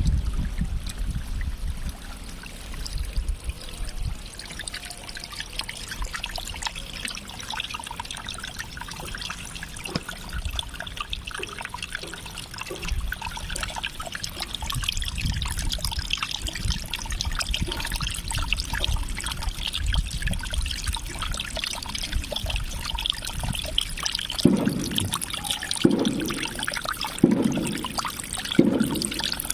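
Water trickling and splashing steadily. Near the end come a run of short, low thumps, about one every second and a half.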